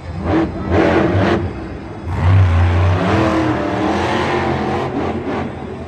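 El Toro Loco monster truck's supercharged V8 engine revving: two short blips, then a long hard rev from about two seconds in as the truck spins on the dirt, easing off near the end.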